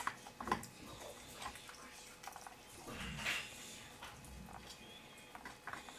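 Russian Toy puppy gnawing a long tube-shaped chew: scattered small clicks and crunches of teeth on it, with a louder rustle about three seconds in.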